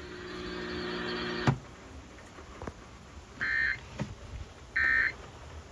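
Emergency Alert System end-of-message data bursts: two short, identical warbling two-tone digital chirps about a second and a half apart, signalling the end of the alert. Before them a low hum with hiss cuts off with a click about a second and a half in.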